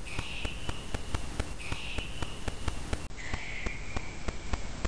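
A short, hissy, whisper-like sound played three times in a row, the last time lower in pitch, over a steady crackle of clicks and hiss. The caption presents it as a spirit voice repeating the name 'Davey' (an EVP).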